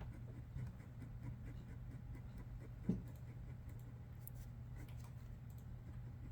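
Pencil sketching on paper: faint light scratching strokes over a steady low room hum, with one short thump about three seconds in.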